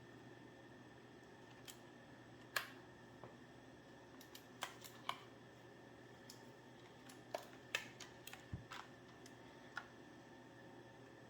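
Keys of an Aula Mountain S2016 mechanical keyboard being pressed one at a time: faint single clicks, unevenly spaced, about a dozen and a half in all. The loudest comes about two and a half seconds in, and the clicks cluster more densely toward the end, over a faint steady hiss.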